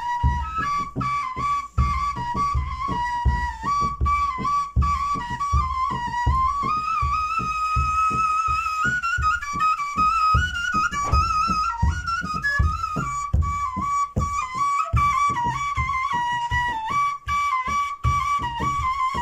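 Kaval, a wooden end-blown shepherd's flute, playing a lively Turkish highland (yayla) folk tune that stays close to one register and climbs a little in the middle, over a steady drum beat.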